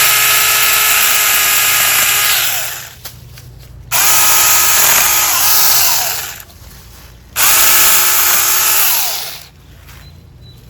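Saker mini cordless electric chainsaw (20 V battery) running in three bursts of about two to three seconds each. Its motor whine dips in pitch as the chain bites into wood.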